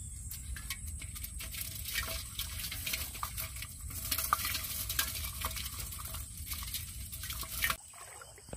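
A hand stirring and splashing in water inside a pot, with many small sloshes and drips, as it gropes for shrimp caught in a bamboo trap. The sound changes abruptly near the end.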